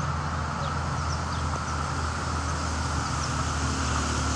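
Steady outdoor background noise with a low hum throughout and a few faint, short high chirps, like small birds.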